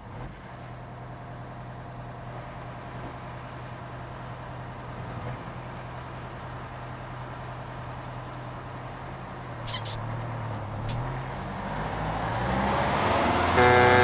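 A bus's diesel engine running steadily, with two short sharp sounds about ten and eleven seconds in. Guitar and fiddle music comes in near the end.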